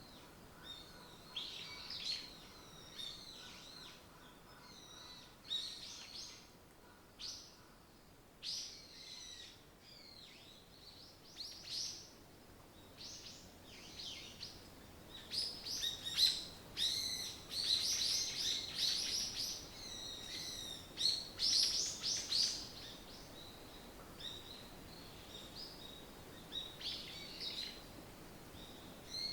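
Forest birds chirping and singing, several short calls and trills overlapping. Scattered at first, the song grows into a dense chorus about halfway through, then thins out again.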